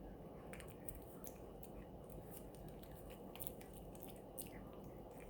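A dog gnawing a chew stick: irregular small crunches and clicks of teeth on the stick, several a second, over a steady low background noise.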